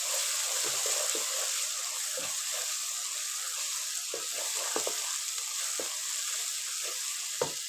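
Tomato-and-spice masala sizzling as it fries in a pan while a wooden spatula stirs it, with scattered soft knocks and scrapes of the spatula against the pan and one louder knock near the end. This is the bhuna stage, the spices being fried in the oil.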